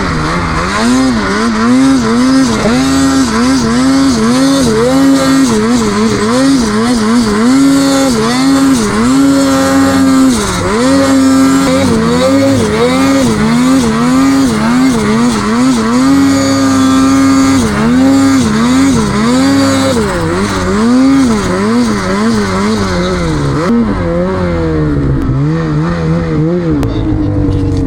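Snowmobile engine run hard, the throttle worked on and off again and again so the pitch rises and falls about once a second, with a few longer stretches held high. It drops to lower revs near the end.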